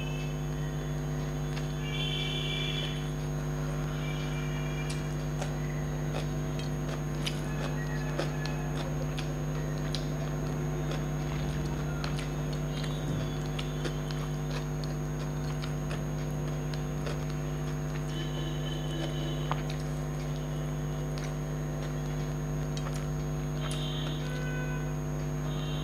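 Steady electrical hum throughout, with small scattered clicks of fingers mixing rice on a ceramic plate and of chewing.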